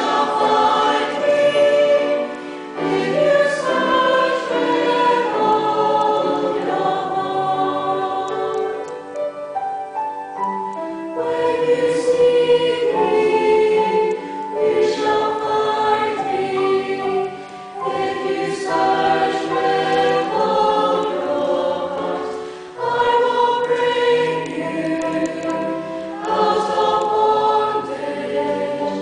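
Church choir singing a hymn in several voice parts together, with sustained notes and short pauses between phrases.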